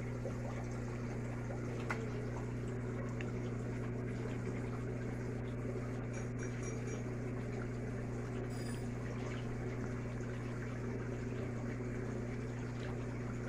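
Steady low hum of an aquarium pump with water bubbling from an air line.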